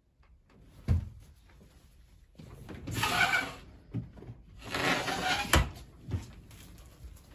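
A mirrored wardrobe door being handled: two longer noisy sounds of about a second each as the door is moved, and several knocks, the sharpest about five and a half seconds in.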